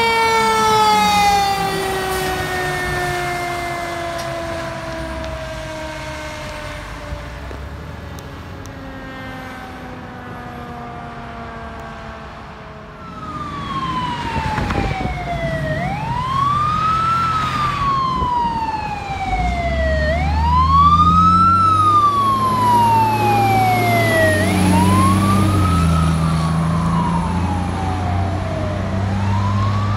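Fire truck sirens. The first winds up sharply and then sinks in a long, slow falling wail lasting about thirteen seconds. A wailing siren then takes over, rising and falling in pitch every four to five seconds, over the low rumble of the truck's engine.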